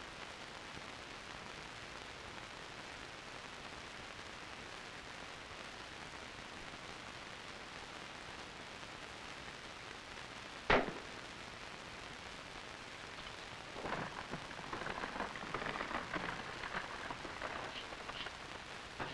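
A single rifle shot, one sharp crack a little over halfway through, over a steady hiss from the old film soundtrack. About three seconds later comes a few seconds of irregular crackling and clatter.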